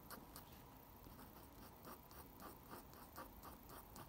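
Faint scratching of a dip pen's nib on drawing paper, a steady run of short pen strokes about three a second as fine ink lines are drawn.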